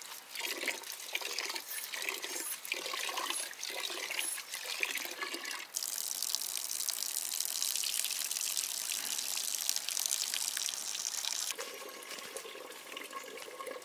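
Water running and splashing: uneven at first, then a steadier, louder rush for several seconds in the middle before it eases.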